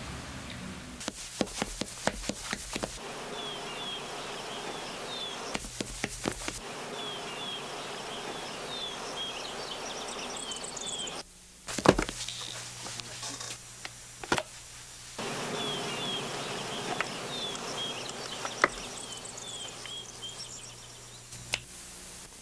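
Quiet room ambience with a low steady hum and groups of short high chirps, broken by scattered clicks and knocks of objects being handled. About twelve seconds in, a single sharp thud as a stack of books is set down on a wooden table.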